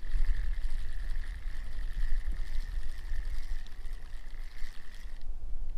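Boat under way: a steady high whine from the motor that cuts out about five seconds in, over low wind rumble on the microphone.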